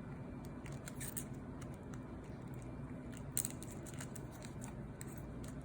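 Faint scattered clicks and light taps of small plastic parts being handled as the laptop screen's 30-pin display cable connector is pushed back and worked free of the LCD panel, with one slightly sharper click about three seconds in.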